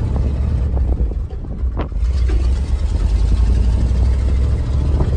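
Ford F-350's 352 V8 running, heard from inside the cab as the truck moves in granny-low first gear. The engine sound dips briefly about a second in, with a single sharp knock just before two seconds, then comes back steady.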